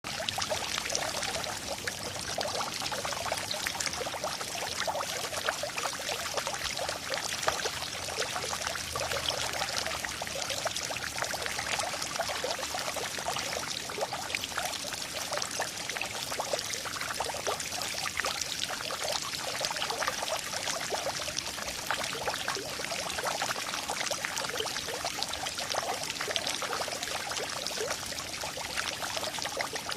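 Steady rain: a dense, even patter of drops with a constant hiss that never lets up.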